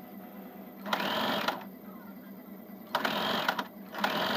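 Electric household sewing machine stitching through fabric in three short runs of about half a second each, with brief pauses between them.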